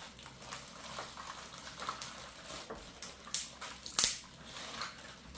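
Small clicks and taps from handling a plastic toy sink while a screwdriver works at the screw of its battery cover, with one sharp, louder click about four seconds in.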